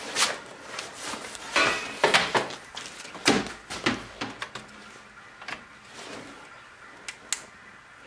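A string of knocks, clicks and rustles as an opened stereo receiver and its power cord are handled, with two sharp clicks about seven seconds in.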